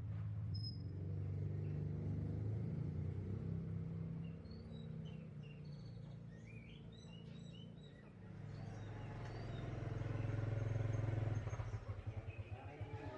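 A vehicle engine running with a low hum, the loudest sound, growing louder toward the end and turning to a fast pulse in the last second or so. Faint, short, high bird chirps sound in the middle.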